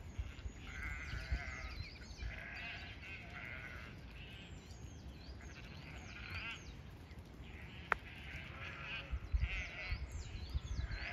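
A flock of sheep bleating over and over, many quavering calls overlapping, as the flock calls out at feeding time.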